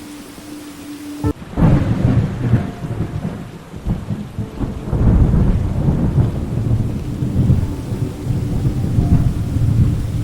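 A sudden thunderclap about a second in, then long rolling thunder that swells and rumbles on, over steady rain.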